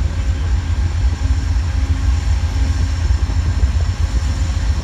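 A train running on the tracks close by: a steady, loud low rumble with a faint steady hum above it.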